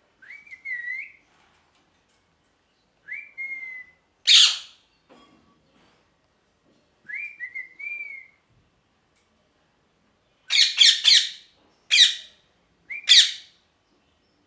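Rose-ringed parakeet calling: three short whistled notes that rise and fall, with loud harsh screeches between them, one about four seconds in and a run of five near the end.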